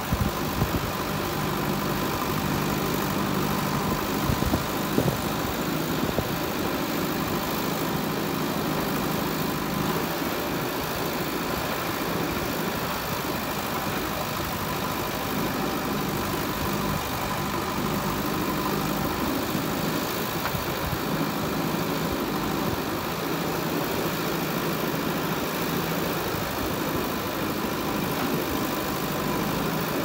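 JCB 3DX backhoe loader's diesel engine running steadily under load while the backhoe arm digs, with a few sharp knocks in the first six seconds.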